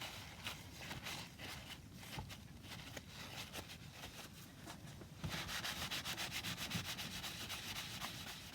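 Hand rubbing on wood: irregular scraping strokes at first, then about five seconds in a louder run of fast, even back-and-forth strokes, several a second.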